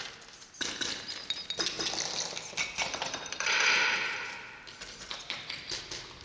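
Scattered light clinks and taps with brief metallic ringing, and a louder hiss of noise swelling and fading about three and a half seconds in.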